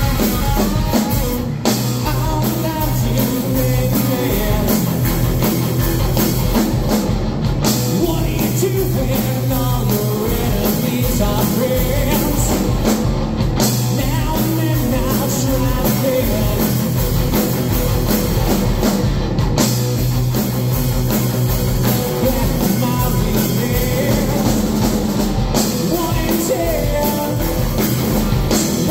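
Live rock band playing loudly: distorted electric guitar, bass guitar and a drum kit, with a lead singer's vocals over them.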